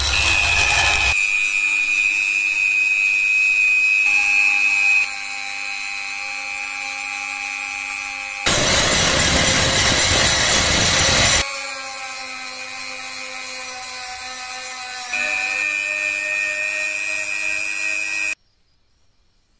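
Handheld power tool spinning a small mounted abrasive wheel against steel, grinding and polishing the blade and tang: a steady high whine that steps in pitch a few times. A louder, harsh grinding stretch comes in the middle. The sound stops shortly before the end.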